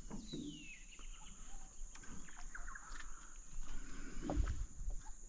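Bush ambience: a steady high insect drone with scattered bird calls, including a falling whistle near the start, and a soft low knock about four seconds in.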